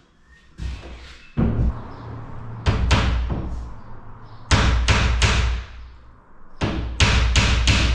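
Hammer knocking on timber: a few separate blows in the first half, then a steady run of even strikes at about three a second near the end.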